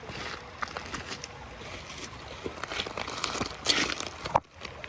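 Close rustling and crunching with scattered small knocks, a louder crackling rustle near the end and then a sharp bump: handling noise from the camera being picked up and moved.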